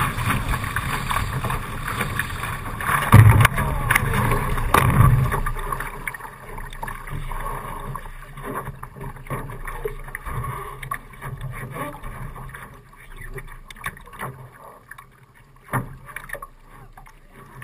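Water rushing past a Laser dinghy's hull with wind on the microphone, then heavy surges and thuds of water as the boat capsizes about three to five seconds in. After that, quieter sloshing and small knocks against the hull while the boat lies on its side, with one sharp knock near the end.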